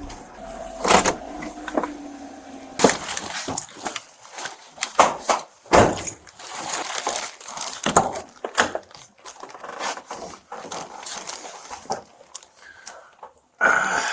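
Irregular rustling, scraping and sharp knocks, the handling and movement noise of a body-worn camera's microphone rubbing against clothing and gear.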